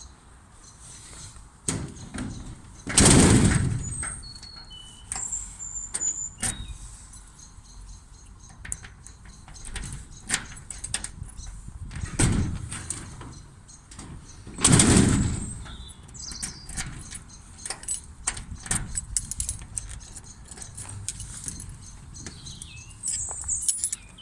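Metal clicks, taps and rattles from a Cardale garage door's handle and lock parts being worked loose with hand tools, with two heavier clunks about 3 seconds and 15 seconds in.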